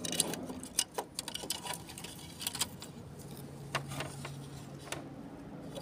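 Scattered light clicks and taps of plastic parts and a flat ribbon cable being handled and fitted inside an opened inkjet printer, over a faint steady hum.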